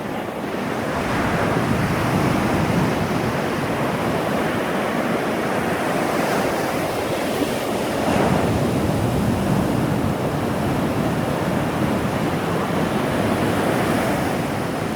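Storm-driven surf from the edge of Tropical Storm Pabuk: heavy waves breaking and washing ashore in a continuous rush, with wind on the microphone.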